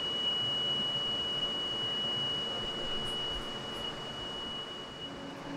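Motorised beamline stage moving up, its drive giving a steady high-pitched whine that fades out near the end.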